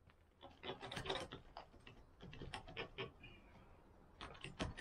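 Faint, irregular knocks, clinks and scrapes of old clay roof tiles and timber being pried loose and handled on a roof.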